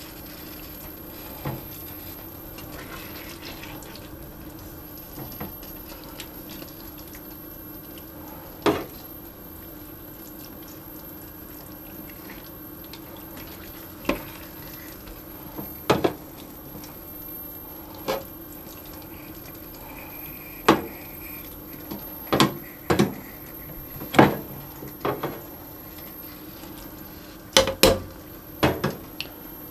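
A metal spoon and tongs clink and scrape against an enamelled cast-iron casserole as chicken and vegetables are stirred and turned in a thick creamy sauce. The sharp clinks are scattered, a few at first and then closer together in the second half, over a low steady hum.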